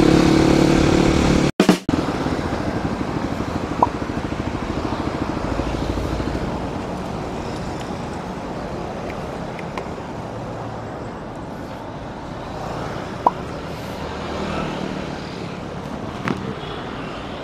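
Steady street traffic noise with a vehicle engine running close by, and a few short light clicks over it.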